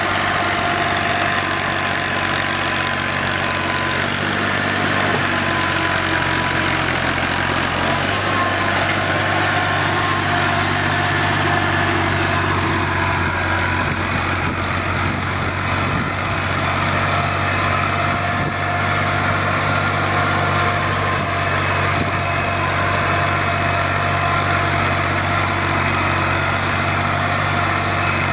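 New Holland Ghazi tractor's diesel engine running steadily, pulling a heavy-duty tine cultivator through stubble field soil.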